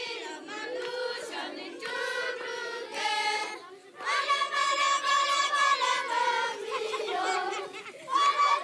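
A group of children singing together in unison, holding long notes, with short breaks about four seconds in and near the end.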